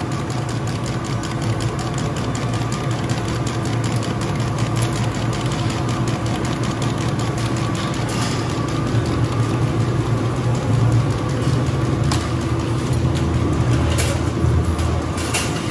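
Sausage stuffing and linking machine running steadily as it fills casing with all-beef sausage and twists it into links: a constant motor hum with a fast, even clicking.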